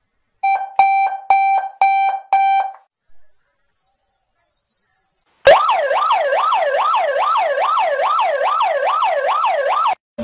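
Five short beeps at one steady pitch in quick succession, each with a click at its start. A few seconds later an electronic siren starts suddenly, wailing up and down about twice a second, and cuts off abruptly near the end.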